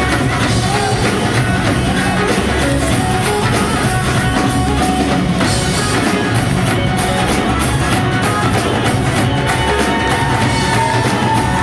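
Live bhangra-rock band music: several dhol drums beaten with sticks over a drum kit and electric guitar, in a steady driving rhythm.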